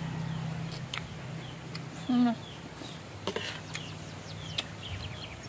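Metal spoons clicking against a plate during a meal, against a background of birds chirping. A short low hum-like sound comes about two seconds in, over a faint steady low hum.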